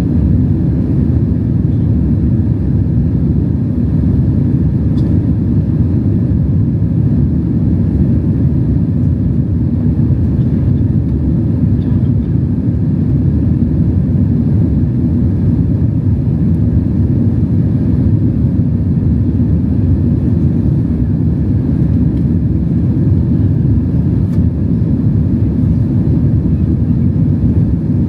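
Cabin noise of a Boeing 767-300 airliner: its twin jet engines and airflow heard from inside as a loud, steady low rumble.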